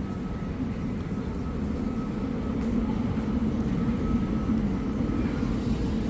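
Low, steady rumble of a passing vehicle, growing slowly louder.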